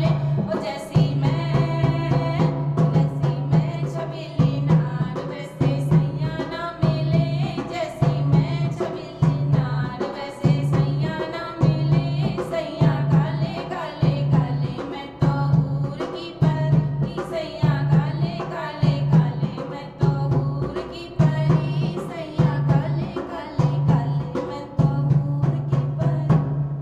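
A woman singing a Hindi folk wedding song (khayal geet) over a steady low drum beat.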